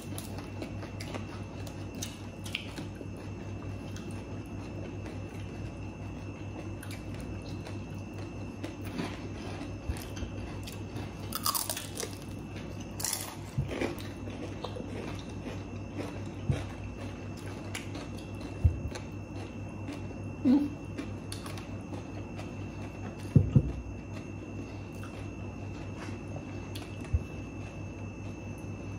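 Close chewing and crunching of crispy deep-fried pork intestine (chicharon bulaklak), with scattered sharp crunches, the loudest about 23 seconds in, over a steady low hum.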